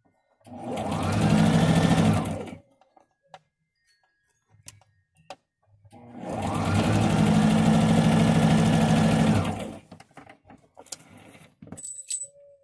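Domestic electric sewing machine stitching a seam in two runs, the first about two seconds long and the second about three and a half, each speeding up as it starts. A few light clicks follow near the end.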